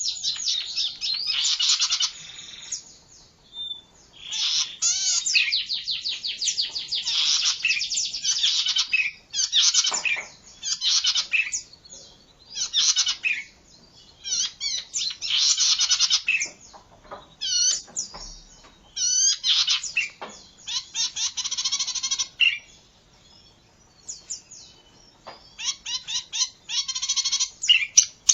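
Oriental magpie-robin (kacer) singing: phrase after phrase of fast rattling trills and varied whistled notes, each phrase a second or two long with short pauses between.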